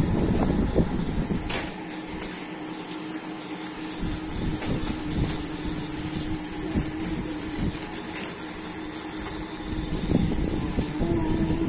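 Biscuit packets and cardboard boxes being handled and packed, with small knocks and rustles, over a steady hum. Low rumbling from the handheld phone's microphone is heard near the start and near the end.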